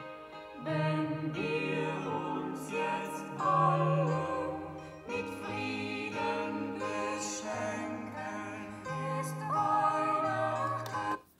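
Music with a singing voice playing through the speakers of a mini hi-fi's CD player, which works again after its laser lens was cleaned. The music cuts off suddenly at the very end.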